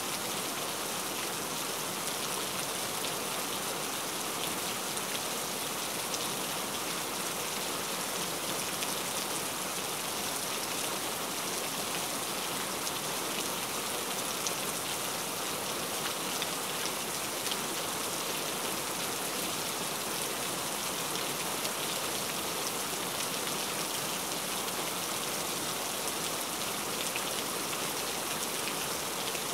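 Steady, unbroken rain: an even hiss of falling drops with fine patter, weighted toward the high end.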